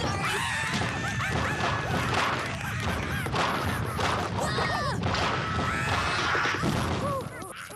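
Cartoon action sound effects: a dense, continuous run of crashes and whacks mixed with many short squeaky yelps and cries, cutting off abruptly at the end.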